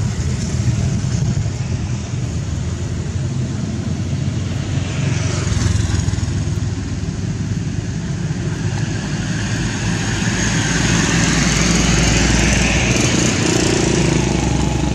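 Motor engine noise, steady, growing louder through the second half.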